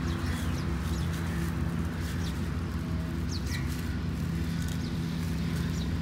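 Outdoor ambience: scattered short bird chirps over a steady low hum.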